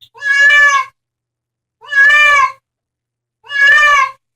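An animal calling three times with long, near-identical pitched cries about a second and a half apart.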